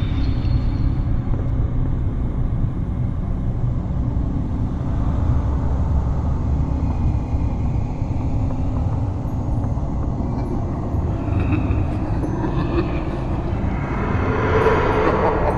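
Steady low rumble of a horror ambience bed, with a higher, noisier swell rising near the end.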